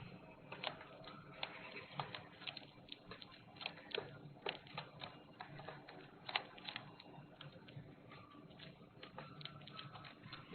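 Irregular light ticks and taps, several a second, a few of them sharper and louder, over a faint low hum.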